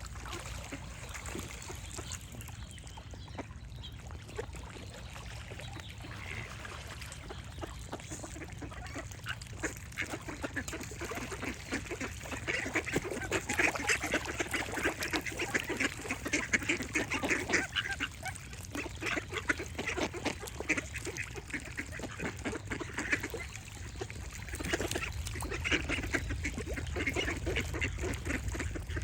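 Ducks quacking in quick runs of short calls, sparse at first and much busier from about a third of the way in, with brief lulls, over a steady low background noise.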